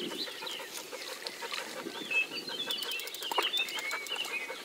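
Birds chirping and calling in short, twisting notes, busiest in the second half, with a few light clicks.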